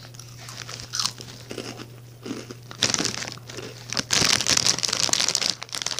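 Crunchy Flaming Hot Cheetos being chewed and the chip bag crinkling close to the microphone, in irregular bursts that are loudest from about four seconds in.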